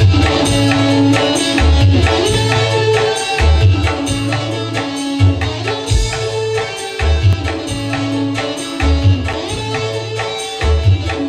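Music with a quick, regular hand-drum beat of the tabla kind under long held melody notes, with no singing.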